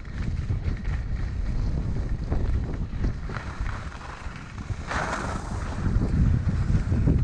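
Wind buffeting a GoPro Hero 6's microphone on a downhill ski run, with skis hissing and scraping over packed, groomed snow. A brief louder scrape comes about five seconds in as the skis turn.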